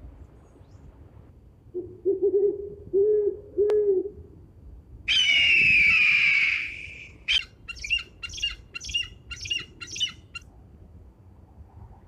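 An owl gives a few low hoots. Then an eagle lets out a loud, high scream lasting about two seconds, followed by a run of short, high piping calls, about two a second.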